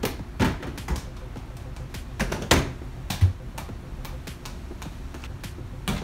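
A small ball shot at a mini basketball hoop, knocking against the backboard, rim and cardboard shoe boxes in a string of sharp knocks, the loudest about two and a half seconds in, with music playing underneath.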